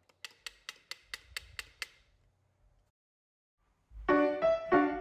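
Background music: a quick run of about eight wood-block-like ticks, then piano music starting about four seconds in.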